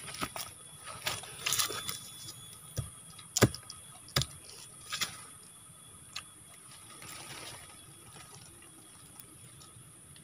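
Scattered clicks, snaps and rustles of twigs and sticks being handled as a stick-and-string snare trap is set on the ground, the loudest snap about three and a half seconds in, over a steady high hiss.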